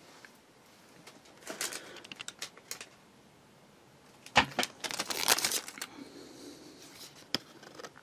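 Yellow masking tape being pulled off its roll, torn and laid down on a cutting mat: crinkling and tearing rustles in two spells, with a sharp tap about four and a half seconds in.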